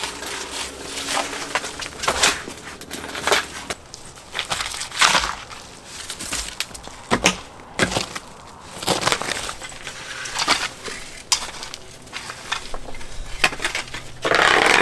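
Repeated crunching on stony ground, about one crunch every second or two, with a louder, longer crunch near the end.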